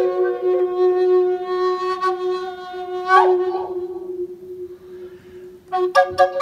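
Native American drone flute playing: one chamber holds a steady low drone while the other carries a slow melody above it, with a sliding bend about three seconds in. The melody thins out for a moment, then returns near the end with sharply attacked notes over the same drone.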